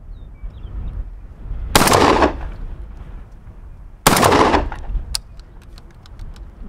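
Two 12-gauge shotgun shots about two and a half seconds apart from a GForce GF12AR semi-auto AR-style shotgun firing Winchester heavy game 4-shot loads. The gun cycles the first shell and fires a second, each blast with a short echo. A few faint sharp clicks follow.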